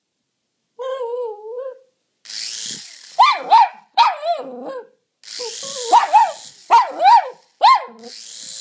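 Jack Russell terrier going frantic at a toy RC helicopter: a short wavering whine, then a rapid run of high-pitched yapping barks, often in quick pairs. Under the barks come three bursts of high whirring hiss, about a second each, which fit the toy's small electric rotors spinning up.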